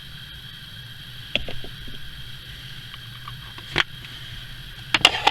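A few sharp clicks and light handling noises: one about a second in, one near four seconds, and a quick cluster near the end. They sit over a faint steady high-pitched background hum.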